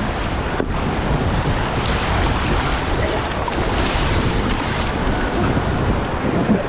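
Rushing river water around a raft, a steady loud wash, with wind buffeting the microphone.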